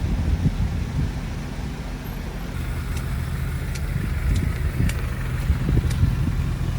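Low, steady rumble of a camper van's engine running, with a few sharp ticks from about three seconds in.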